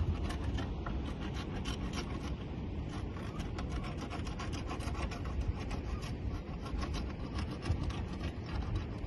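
Rapid, irregular rasping scrapes: a hand paint scraper stripping old, flaking paint from wooden clapboard siding, the paint just starting to come off.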